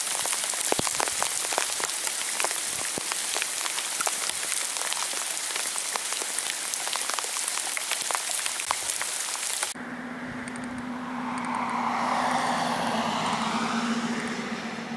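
Rain falling on a river's surface: a dense hiss made of many small drop impacts. About ten seconds in it cuts off abruptly and gives way to a rushing sound that swells and then fades, over a steady low hum.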